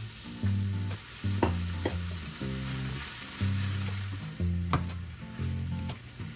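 Kimchi fried rice sizzling in a frying pan while it is stirred, with a few sharp scrapes or taps of the utensil against the pan. Background music with low, held bass notes plays throughout.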